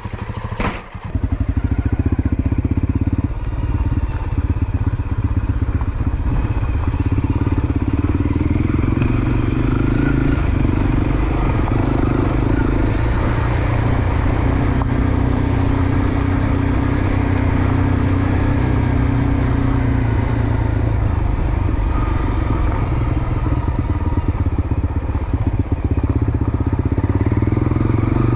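Dirt bike engine running steadily under way on a rough dirt track, heard close from the rider's own bike. There is a brief dip about a second in.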